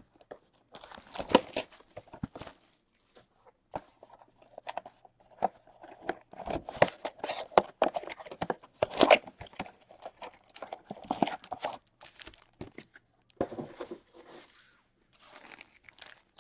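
A cardboard trading-card box being torn open by hand and the wrapped card packs inside pulled out: irregular tearing, scraping and crinkling.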